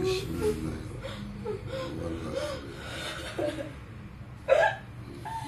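A woman's voice making short, broken cries that bend up and down in pitch, with one sharp, loud cry about four and a half seconds in.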